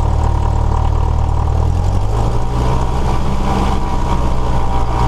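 Cessna 172S's four-cylinder Lycoming engine running steadily during the before-takeoff run-up, heard from inside the cabin, with a change in its note about two seconds in as the throttle is brought up for the run-up.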